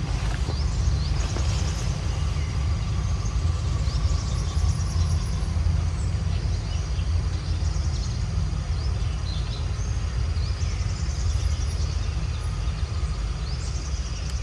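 A loud, steady low rumble, with birds chirping and trilling high above it several times.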